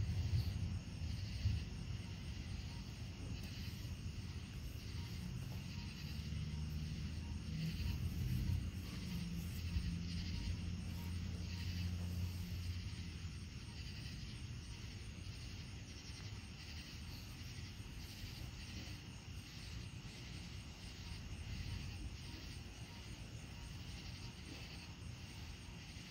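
A low rumble that swells about six seconds in and fades after about twelve, over a steady high chirring of insects.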